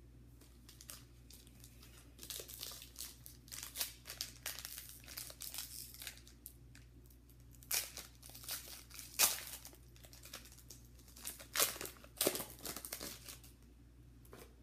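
Foil wrapper of a Panini Totally Certified football card pack being torn open and crinkled by hand: irregular crackling and rustling that starts about two seconds in and stops shortly before the end, loudest in a few sharp crackles past the middle.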